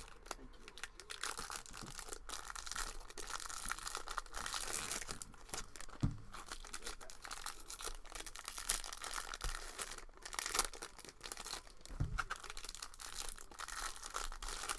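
Foil wrapper of a Bowman Draft baseball card pack being torn open and crinkled in the hands: an irregular run of crackles and rips, with a couple of soft knocks.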